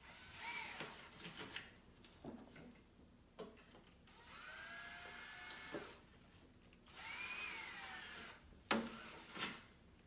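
Cordless drill run in three short bursts, each time winding up to a steady whine and spinning down, opening up misaligned bolt holes in a plastic dirt-bike fender. A sharp click near the end.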